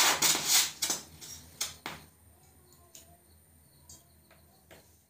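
A disposable lighter being struck and lit: a cluster of sharp scratchy clicks with a short hiss in the first two seconds, then only a few faint ticks.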